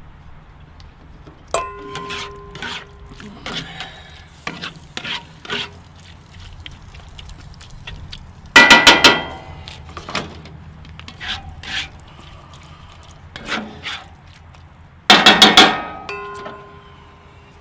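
A metal spatula scraping and clinking against cast-iron skillets while ground meat is stirred, with short ringing clanks. The loudest scraping comes in two bursts, one about halfway through and one near the end.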